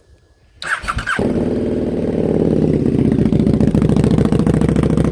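KTM 1290 Super Duke R's V-twin engine starting: the starter cranks briefly about half a second in, the engine catches about a second in and settles into a steady idle.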